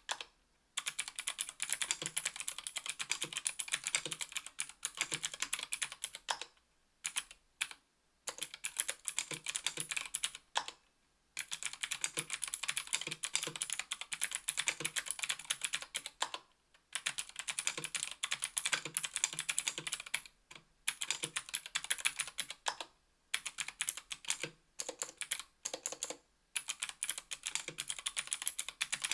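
Fast typing on a 60% aluminum keyboard (KBDfans Tofu, aluminum plate, GMK keycaps) fitted with stock Gateron Blue Ink clicky switches, 60 g: a dense run of crisp keystroke clicks. The typing breaks off in a few short pauses.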